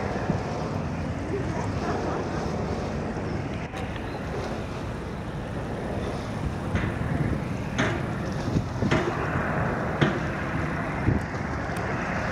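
Wind buffeting the microphone over a steady rush of water, broken by a few short knocks toward the end.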